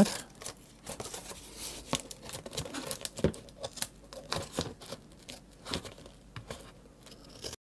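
Scissors cutting through thick corrugated cardboard: a run of irregular crunching snips. The sound breaks off suddenly just before the end.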